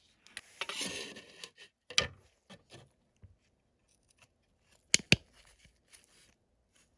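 Small hand-work sounds on a workbench: a short scraping rustle about a second in, a sharp click at two seconds, then two loud clicks close together about five seconds in.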